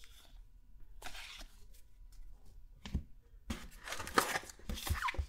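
Crinkling and tearing of a trading-card pack's wrapper as a new pack is handled and opened, with a soft thud about three seconds in.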